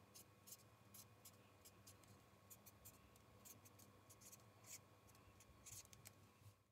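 Faint scratching of a pen writing on a paper heart, in short, irregular strokes.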